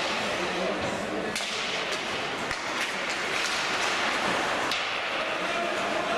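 Live ice hockey play: skate blades scraping the ice and stick and puck clacks, with voices calling out over the noise.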